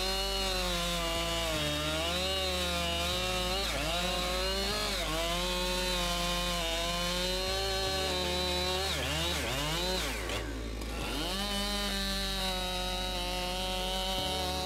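Husqvarna 592 XP two-stroke chainsaw running at high revs while cutting through a large log. The engine pitch sags and recovers as the chain bites, with a sharper drop in revs about ten seconds in before it picks up again.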